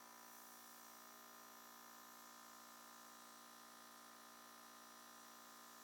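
Near silence: a faint, steady electrical hum with hiss.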